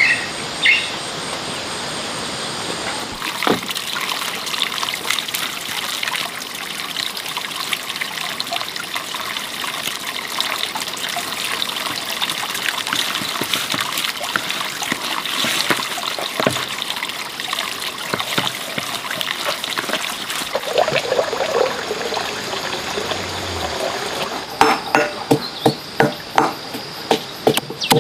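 Water trickling and splashing steadily. About three-quarters of the way in, a run of quick, regular knocks joins it, two or three a second.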